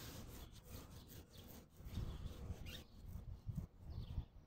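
Faint irregular rubbing and scraping noise, uneven in loudness, with a few brief high chirps.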